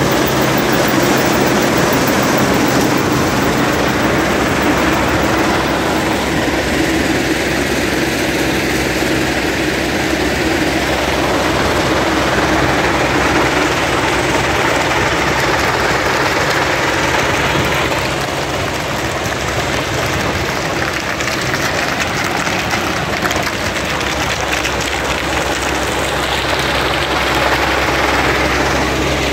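Keestrack Pioneer mobile screening plant running: its Deutz diesel engine, vibrating screen box and conveyor belts make a loud, steady mechanical din with a low hum underneath, as stone and gravel pass through the screen.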